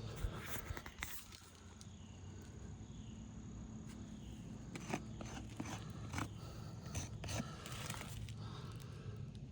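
Scattered light clicks and scrapes from handling asphalt roof shingles, over a steady low hum.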